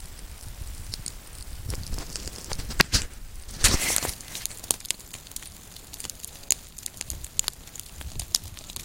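Burning dry grass and brush crackling and popping in many sharp, irregular snaps, with a louder, denser rush of crackle about three and a half seconds in. The fire is a prescribed backburn.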